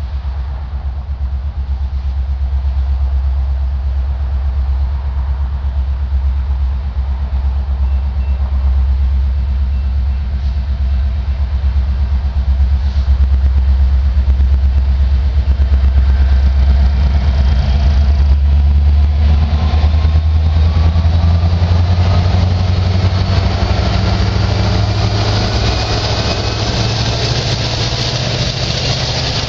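The diesel engine of an approaching EMD SD70ACE locomotive leading a slow freight train: a steady low rumble that grows louder as it nears, with a whine rising in pitch over the last ten seconds or so.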